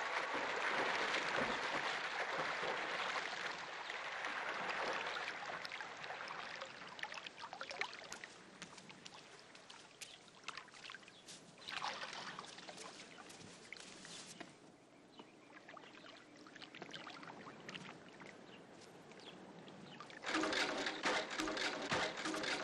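A swimmer splashing through a pool with freestyle strokes, loudest over the first few seconds and then fading to quieter dripping and lapping water with scattered small splashes. Near the end a louder sound with held tones comes in.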